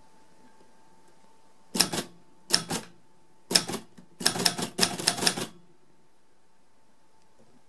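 Manual typewriter keys striking the paper on the platen: a few spaced keystrokes, then a quicker run of strikes about four seconds in, stopping after about five and a half seconds.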